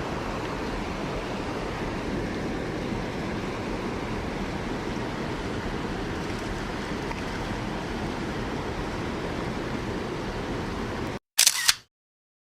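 Mountain stream water rushing steadily. Near the end it cuts off abruptly, followed by a brief sharp double click and then silence.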